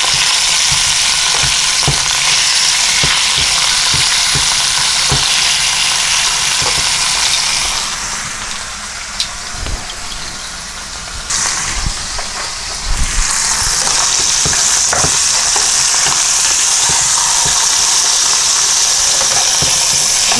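Steaks searing in hot olive oil in a pan: a loud, steady sizzle that dies down for a few seconds around the middle and then comes back strong. Metal tongs knock against the pan now and then.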